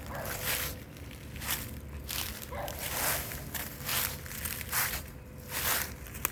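Footsteps of a person walking outdoors, a step about every second, with one sharp click near the end.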